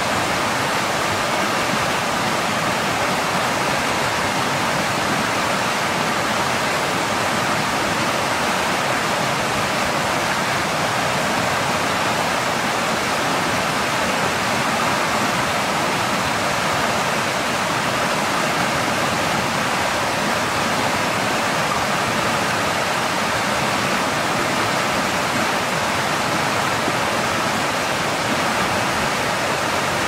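Shallow stream running over rocks: a steady, even rush of water.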